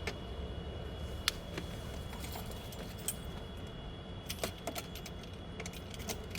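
Keys on a keyring jangling, with scattered sharp clicks, as the ignition key of a 2005 GMC Yukon is handled and turned to the on position.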